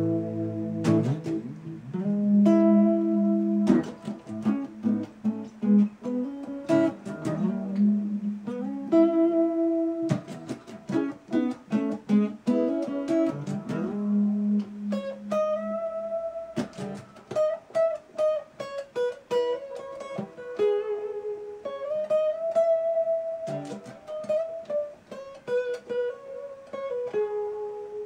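Electric guitar being played: chords and lower notes through the first half, then a melody of single picked notes higher up in the second half.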